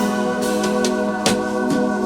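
Background music: held chords in a steady layer, with a few light percussion hits.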